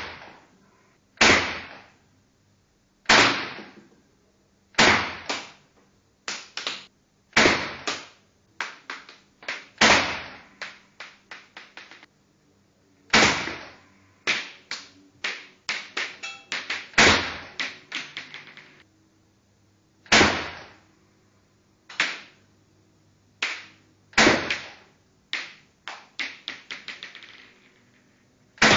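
WE Glock 33 Advance 6mm gas-blowback airsoft pistol firing dozens of sharp shots. Some are single and a second or two apart; others come in quick runs of several, about three a second.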